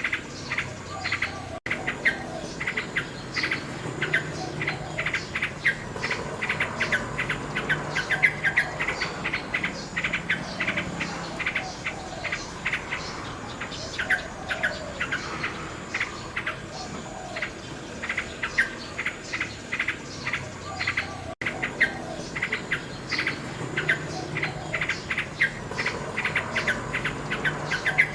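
Nightingale singing: a continuous stream of rapid repeated notes and trills. It cuts out for an instant twice.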